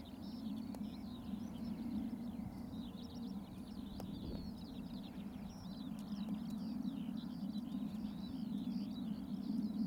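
Continuous high twittering birdsong over a steady low rumble, with one faint click about four seconds in.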